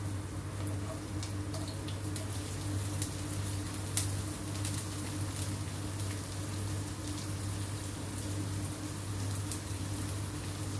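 Hot oil crackling lightly in a nonstick wok as sliced shallots and garlic are scraped in from a plate with a silicone spatula: scattered small ticks over a steady low hum, with one sharper tick about four seconds in.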